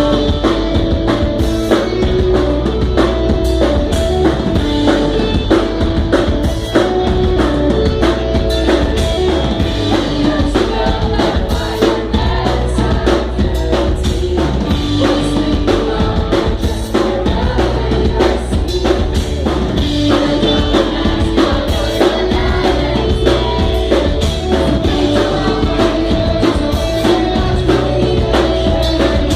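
A rock band playing a song live: a repeating electric guitar riff over bass and a driving drum kit, with singing.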